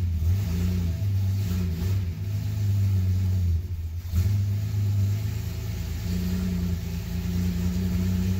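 Chrysler slant six inline six running at a fast idle of roughly 1,500 rpm just after a cold start, heard from inside the car, its solid-lifter valve train freshly set to a lash of 4 and 6 thousandths. The engine note sags briefly about four seconds in, then picks back up.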